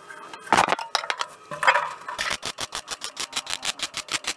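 MIG welder laying a stitch weld along a steel boot-floor seam of a classic Mini, re-welding a thin, poorly penetrated joint from the inside. It gives a rapid, even crackle of about a dozen pops a second. The crackle pauses at first with a couple of short bursts, then runs steadily from about two seconds in.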